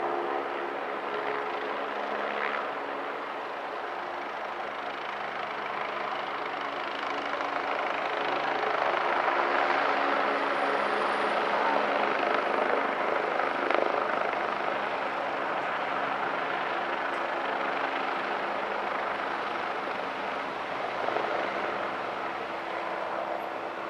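Helicopter flying low overhead: steady rotor and engine noise that swells to its loudest about halfway through, then eases off as it moves away.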